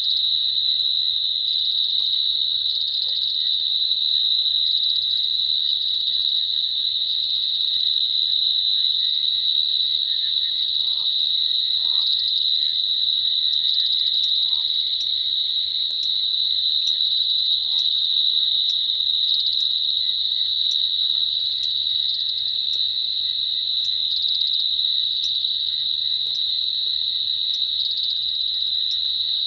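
Night chorus of insects, a steady high-pitched trill, with a few short lower calls around the middle.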